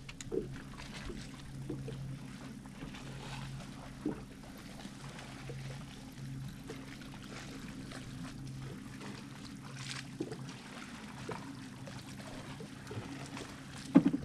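Water lapping and trickling against a fishing boat's hull, over a steady low hum that fades out about three quarters of the way through. A few soft knocks.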